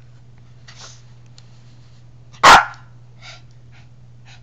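A small dog gives one loud, sharp bark about halfway through, with a few much fainter short sounds before and after it.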